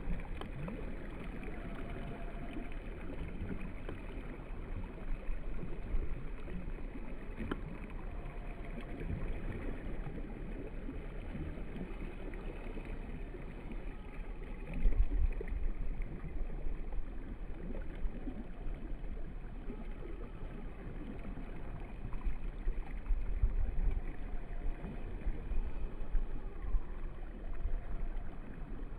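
Outdoor shore ambience: wind rumbling on the microphone over small waves lapping, louder in gusts about halfway through and again near the end, with a few faint short bird calls.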